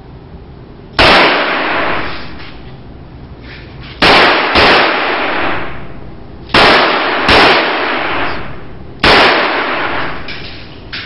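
Six pistol shots, each echoing for about a second: a single shot, then two quick pairs, then one more shot near the end.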